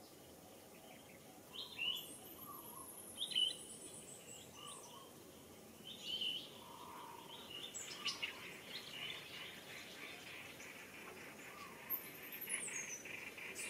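Birds chirping and calling in the tree canopy, including a thin, very high whistle that slides downward twice. From about eight seconds in, an insect's steady, pulsing buzz joins them.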